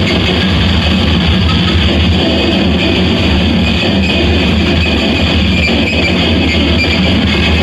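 Noise music: a loud, dense, unbroken wall of sound filling the whole range from deep lows to highs, with no pauses and no clear beat.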